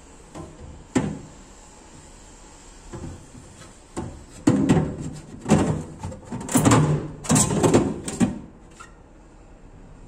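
Kitchen cabinet doors being opened and shut: a sharp knock about a second in, then a run of thumps and rattles in the second half.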